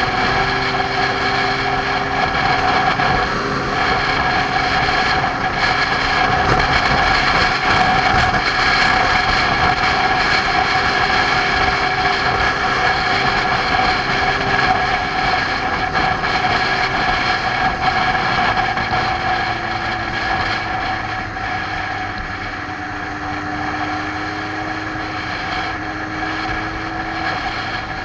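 Motorcycle engine running steadily at cruising speed, with wind and road noise on the bike-mounted microphone. The engine note drops for a few seconds about twenty seconds in, then climbs again.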